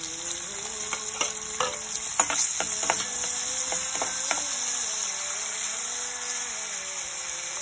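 Chopped red onion sizzling steadily in hot ghee and oil in a steel pan. A metal spoon stirs it, scraping and clicking against the pan in the first half.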